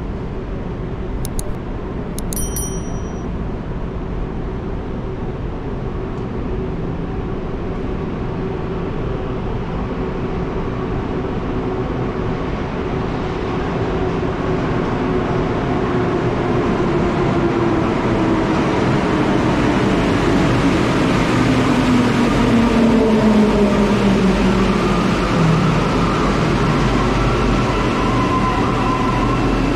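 Rubber-tyred metro train arriving at an underground platform: the rumble grows steadily louder as it approaches, and in the second half its traction motors give a falling whine as it slows alongside the platform.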